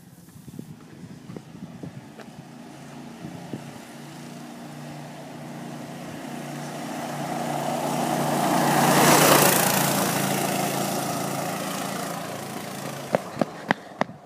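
Homemade go-kart's small engine running at a steady speed as the kart drives by, growing louder as it comes near, loudest about nine seconds in, then fading as it moves off. Footsteps on pavement near the end.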